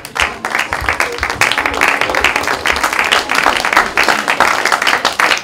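Theatre audience applauding: many hands clapping in a dense, loud stream.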